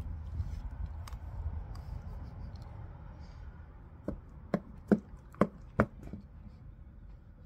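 A dog chewing fresh meat taken from a hand: about five crisp chomps of the jaws, close together, in the second half.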